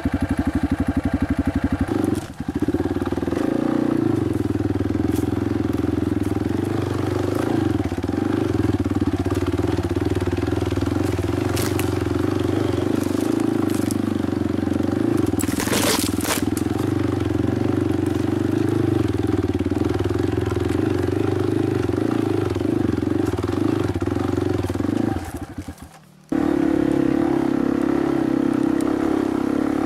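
Dirt bike engine running steadily under throttle, with a brief dip about two seconds in and a short hiss about halfway through. The engine sound drops out for a moment near the end, then picks up again.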